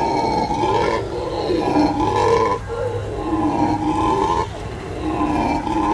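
Black-and-gold howler monkeys howling: a loud, deep, rasping roar in about four long calls, each separated by a brief dip.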